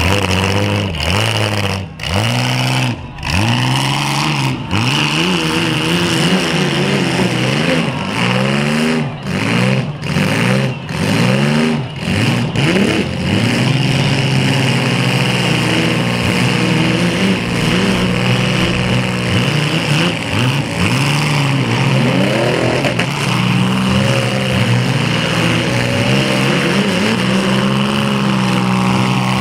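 Engines of compact demolition-derby cars, loud, revving up and down in quick rising and falling sweeps again and again, then running more steadily near the end.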